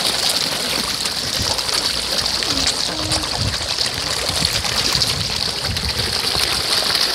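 A crowd of carp churning and splashing at the water's surface as they feed, a dense, continuous patter of small splashes and slurps with no let-up.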